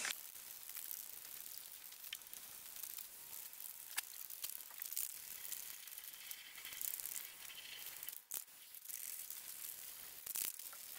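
Aerosol spray-paint can hissing as paint is sprayed onto a rubber tire, with a few faint clicks.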